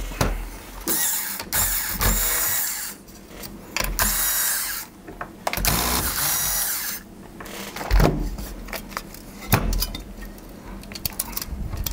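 Corded electric screwdriver running in several short bursts as it backs screws out of a graphics card's cooler, followed near the end by a few sharp knocks of the card's metal cooler and board being handled.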